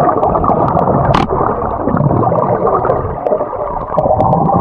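Muffled underwater gurgling and churning of swimming-pool water, heard with the microphone submerged, with a few faint sharp clicks.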